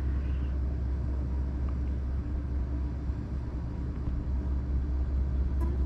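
A steady low rumble with a faint, even hum above it, and no distinct events.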